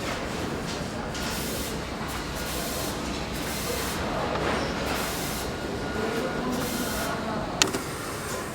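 Engine assembly-line machinery running with a steady mechanical din and hiss, broken by one sharp metallic click near the end.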